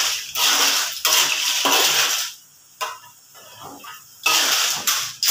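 Metal spatula stirring and scraping clams in a steel wok: bursts of scraping with the clatter of shells, three strokes in the first two seconds, a pause, then more stirring near the end.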